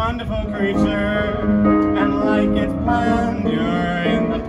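Electric stage piano playing an instrumental solo passage of a swing tune, chords and melody notes in steady succession.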